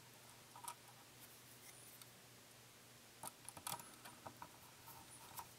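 Faint small clicks and taps of a tiny plastic model-railroad coupler and its cover being handled and seated, with a quick run of ticks about three to four seconds in.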